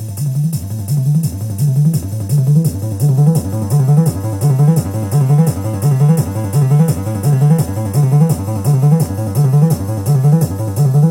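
Software emulation of an EMS Synthi AKS synthesizer playing a fast, repeating low sequencer loop, with a sequenced hi-hat ticking steadily over it. The synth swells up over the first second or two, then holds steady.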